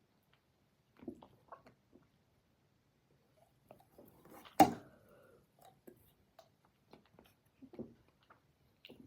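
A person gulping down a fizzy soda: small, scattered swallowing and mouth sounds, with one sharp click about halfway through.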